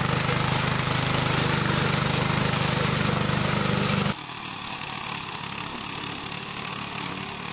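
Engine of a remote-control tracked lawnmower running steadily. About four seconds in, the sound cuts abruptly to a quieter, rougher machine running sound.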